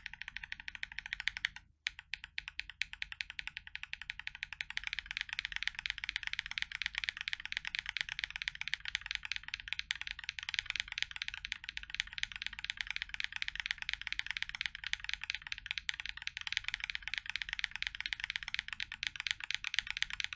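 Fast, continuous typing on a custom mechanical keyboard fitted with Tecsee Strawberry Milk tactile switches in a brass plate with case and plate foam, under GMK keycaps: a dense run of key clacks with a brief pause about two seconds in. It is a sound test comparing stock and lubed switches.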